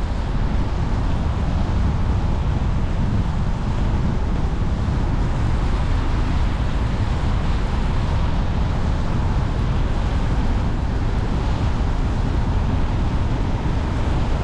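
Car driving at a steady, low speed: an even low rumble of tyres on asphalt and engine, with wind noise over it.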